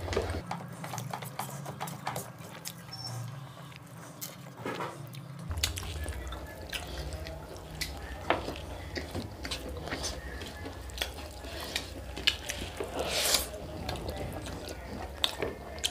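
Close-up eating sounds of people eating fried rice and chicken curry with their hands: wet chewing, lip smacks and the squish of rice being mixed by fingers, as many small irregular clicks. A louder, longer smack comes near the end.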